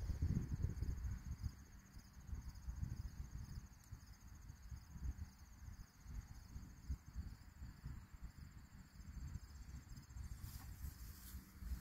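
Insects chirping: a high, even, pulsing trill that stops about ten seconds in, over an uneven low rumble on the microphone.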